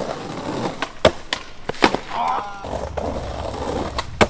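Skateboard wheels rolling on concrete, broken by several sharp clacks of the board striking the ground: a cluster in the first two seconds and one more near the end.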